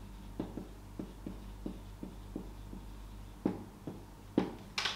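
Marker pen writing on a whiteboard: a string of short strokes, about two or three a second, with a few louder ones near the end, over a faint low hum.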